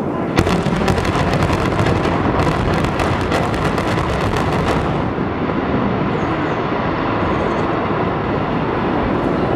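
Demolition charges firing in a high-rise building implosion: a sharp first crack, then a rapid string of blasts for about four and a half seconds. After the blasts stop, a loud steady rumbling noise carries on to the end.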